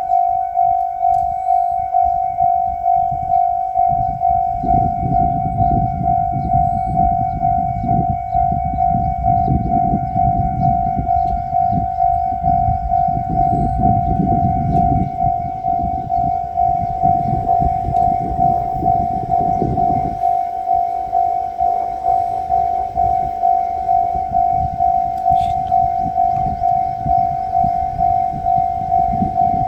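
Japanese railway level-crossing alarm ringing its steady, evenly repeating electronic bell. Under it the low rumble of a two-car diesel railcar train passing over the crossing swells in after about four seconds and falls away sharply about twenty seconds in, leaving the bell ringing on.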